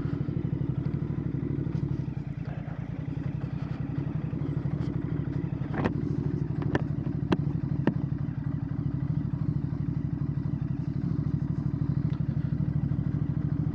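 Royal Enfield Bear 650's 648 cc parallel-twin engine running at low, steady revs through a Red Rooster Performance aftermarket exhaust, with a few sharp clicks around the middle.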